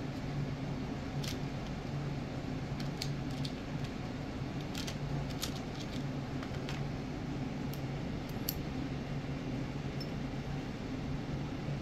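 Scattered light plastic clicks and taps from a small clear plastic parts box being handled and opened, about a dozen at irregular intervals, over a steady low hum.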